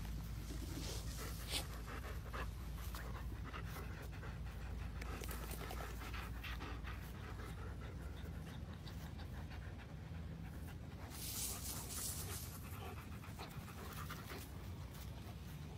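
German Shepherd dog panting steadily.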